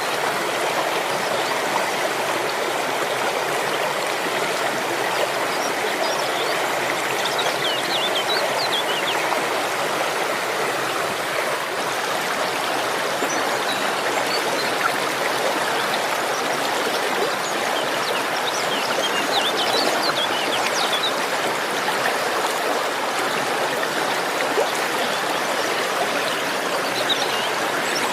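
Waterfall: a steady, even rush of falling water. A few faint high chirps come through it three times.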